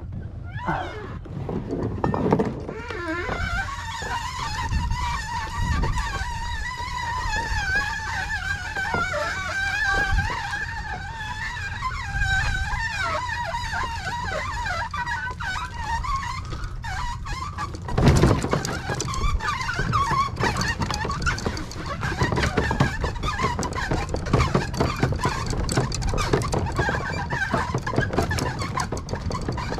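Loaded kayak being wheeled over brick pavers and then onto gravel and grass: low rolling rumble with a wavering high squeal for the first half, a thump about halfway through, then a dense rattling clatter as it rolls over the gravel.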